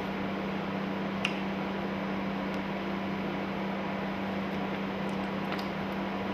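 An electrical kitchen appliance running with a steady hum, holding one low tone over an even hiss. Light clicks come about a second in and again near the end.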